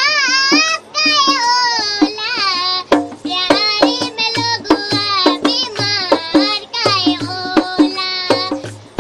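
A young girl singing a song in a high voice, over a steady percussion beat.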